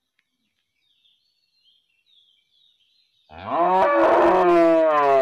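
A cow mooing: after about three seconds of near quiet with faint high chirps, a loud, long moo begins low, rises in pitch and is held.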